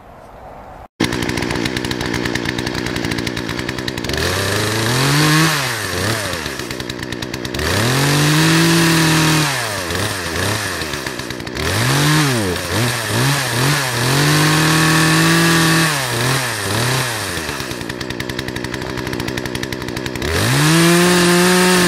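Poulan two-stroke chainsaw engine, already running when the sound cuts in about a second in. It idles, then is revved up to high speed and let back down to idle again and again, some revs held for a couple of seconds and others short blips, while its carburettor mixture is turned with a homemade splined copper-tube adjusting tool to check that it reaches full RPM.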